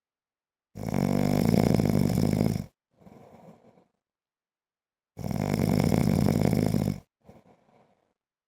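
A man snoring: two loud snores about two seconds long, roughly four seconds apart, each followed by a softer, shorter breath sound and then silence.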